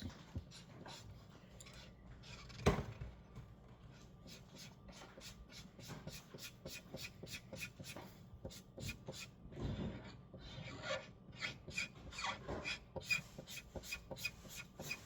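Chisel tip of a marker scratching on paper in quick back-and-forth strokes, colouring in a large area, several strokes a second. One louder knock about three seconds in.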